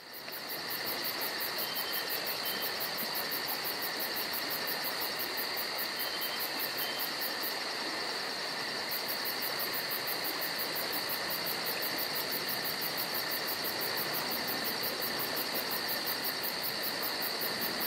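A steady high-pitched chirring hiss with a fast, even pulse in its highest part, holding at one level throughout.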